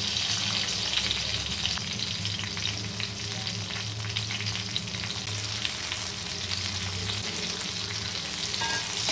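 Green chillies sizzling in hot oil in a metal kadai, a steady frying hiss with many small pops. Near the end a steel spatula stirs and scrapes them against the pan.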